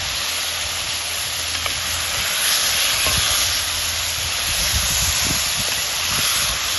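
Curry goat frying in a hot pot, a steady sizzle.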